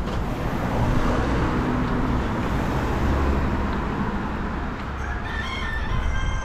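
Steady street rumble, with the low drone of a vehicle, and a pitched call lasting about a second and a half near the end.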